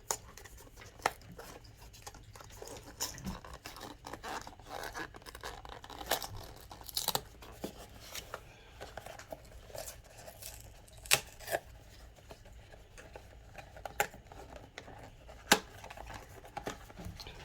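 A blind-box figure's cardboard packaging being opened by hand: tearing and rustling with scattered sharp clicks and snaps.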